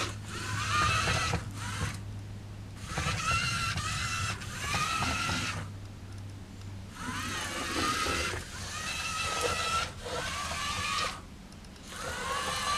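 The small DC drive motors of a toy RC car whining in repeated short runs, each rising in pitch as the motors spin up, with brief pauses as the car stops and starts. A low hum sits underneath for the first few seconds.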